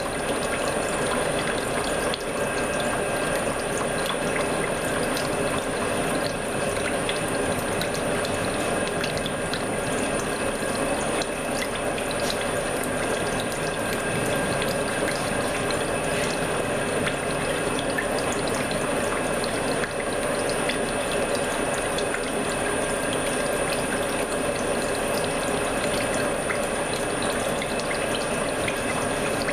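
CNC milling machine hobbing a helical gear with a hob cutter: a steady machining sound, the whine of the spindle and drives under a dense run of fine rapid clicks from the hob teeth cutting.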